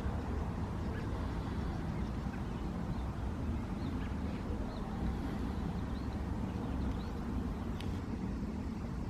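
Wind rumbling on the microphone, with a few faint bird chirps in the middle.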